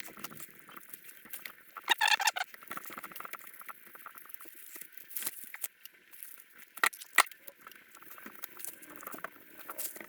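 Plastic pry tool working under a tablet's glued screen: a run of small scraping clicks and crackles, a short squeak about two seconds in, and a few sharper snaps a little past the middle.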